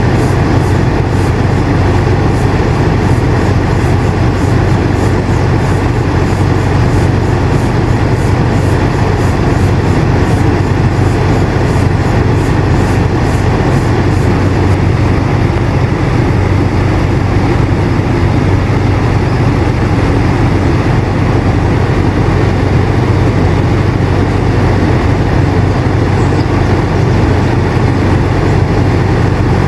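Air conditioner running steadily: a constant low hum under an even rush of airflow.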